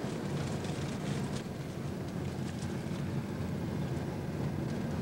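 Steady low rumble of a vehicle in motion, with a few faint light ticks.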